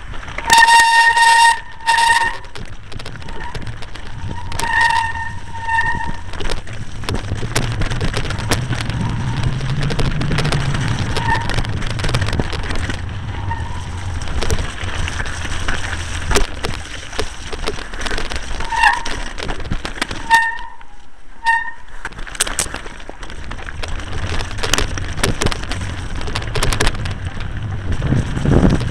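Mountain bike running fast down a wet, rocky trail: a steady clatter and rattle of tyres and frame over stones, with wind rumbling on the microphone. The brakes let out several short high-pitched squeals, near the start, around five seconds in, and again around twenty seconds in.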